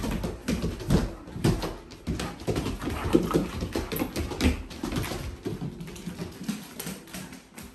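Two Akita dogs play-wrestling on a wooden floor: short dog vocalizations over many quick clicks and scuffles of claws and paws on the boards. The sounds die down near the end.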